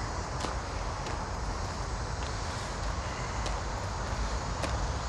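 A steady low rumble with a few faint clicks scattered through it.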